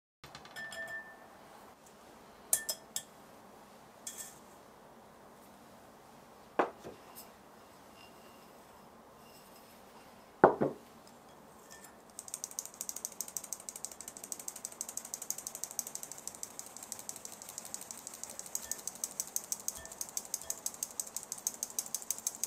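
A few sharp knocks of utensils against a bowl, the loudest about ten seconds in. From about twelve seconds in, a kitchen tool clicks rapidly and evenly.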